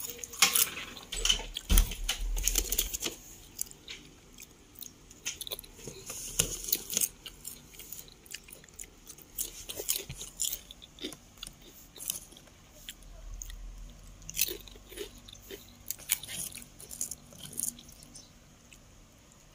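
Potato chips crunched and chewed close to the microphone, with the foil chip bag crinkling as a hand reaches into it. The crackling is densest in the first few seconds, then comes in sparser bursts.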